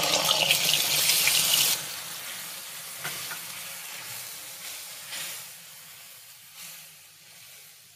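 Milk poured into hot ghee in an iron kadhai, sizzling loudly. After about two seconds the sizzle drops suddenly to a quieter bubbling hiss that slowly dies away as the mixture is stirred with a wooden spatula.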